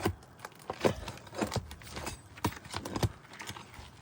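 Metal pry bar knocking and clicking against roof shingles and their nails, several sharp irregular taps, as the nails are worked loose from under the shingles.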